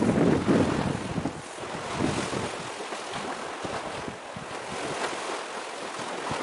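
Wind buffeting the microphone, with a heavy low rumble in about the first second that eases into a steady rushing hiss.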